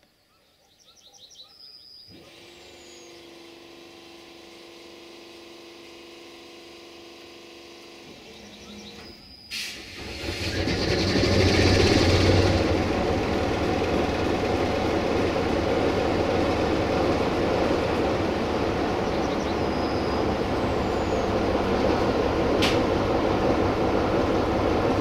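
CFR 060-DA (ST43) diesel locomotive's Sulzer engine starting up: a quieter steady machine hum, then a sharp click just before ten seconds and a loud surge as the engine fires, settling into loud steady running. A single click comes near the end.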